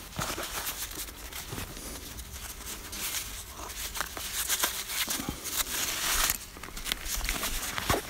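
Rustling and crinkling as a waxed-canvas backpack's flap is opened and a small pouch is pulled from a front pocket and handled, with small clicks of buckles and straps and a louder rustle about three-quarters of the way through.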